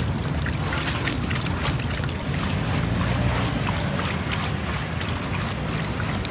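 Cooking oil pouring from a metal tin into a large wok of oil, splashing steadily with many small splatters, over a low rumble of wind on the microphone.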